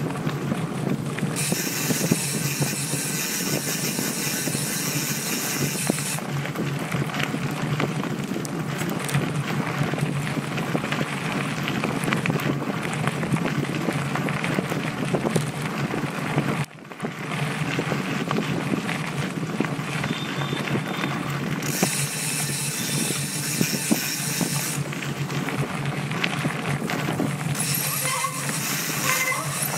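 Mountain bike ridden fast over a dirt and gravel trail, heard from a camera mounted on the bike: continuous tyre crunch and rattling over bumps mixed with wind noise on the microphone. The sound dips briefly about two-thirds of the way through.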